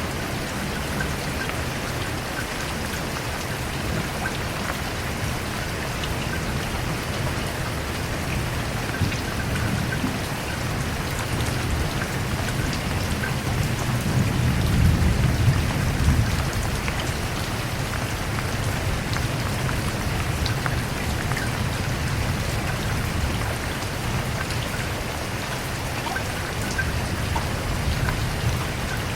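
Steady rain falling on a surface, an even hiss with fine patter of drops. A low rumble swells and fades about halfway through.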